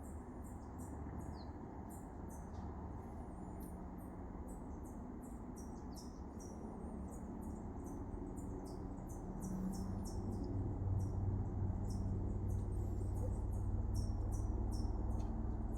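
Birds giving short, very high-pitched chirps, each dropping slightly in pitch, about two or three a second. A low rumble underneath grows louder about ten seconds in.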